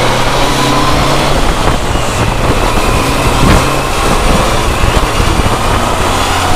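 Inline-four sport motorcycle engine running at steady moderate revs, heard under heavy wind rush on an on-board camera while riding.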